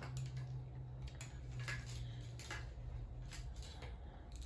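Faint clicks and rustles of plastic ring-light and tripod parts being handled and fitted together, over a low steady hum.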